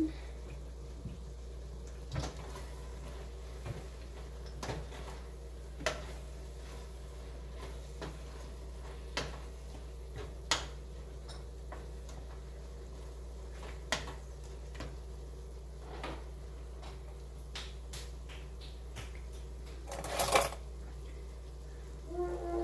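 A cooking spoon knocking and scraping against a stainless steel pot as the food is stirred: scattered single clinks every second or two, and a louder, longer scrape near the end, over a steady low hum.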